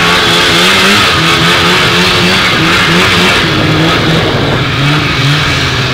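Vintage two-stroke snowmobile engine running under way, its pitch rising and falling as the throttle is worked.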